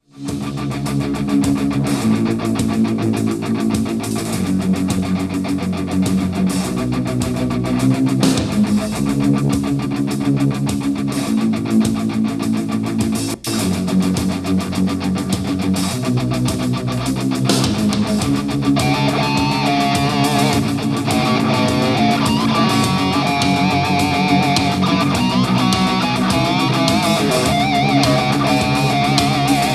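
Rock music with driving electric guitars, played as a sound test of a BenQ treVolo S electrostatic Bluetooth speaker. The track starts suddenly, drops out for an instant about 13 seconds in, and a wavering lead melody enters over the guitars about 19 seconds in.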